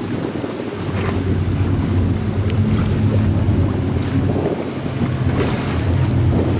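High-speed catamaran passenger ferry passing close by, its engines making a steady low drone over the rush of water off the hulls, with wind buffeting the microphone.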